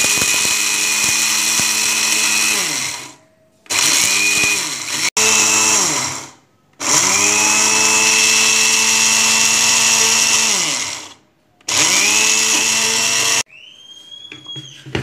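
Electric spice grinder grinding dry-roasted whole spices to powder in its small jar, run in five pulses of one to four seconds; each time, the motor's hum falls away as it spins down before the next pulse.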